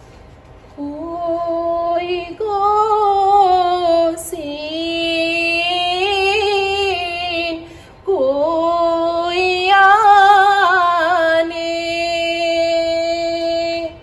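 A woman singing a slow, mournful Sinhala melody solo, illustrating the sorrow and compassion (karuna) rasa. It starts about a second in, in long held notes with wavering ornaments, broken by short pauses for breath, and ends on a long steady note.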